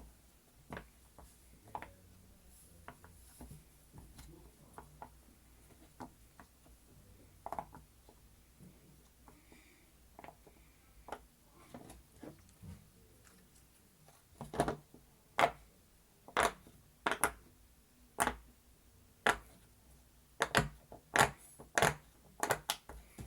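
Silicone pop-it fidget toy having its bubbles pressed one after another: soft separate pops, faint and sparse at first, then much louder and coming about one or two a second from about fourteen seconds in.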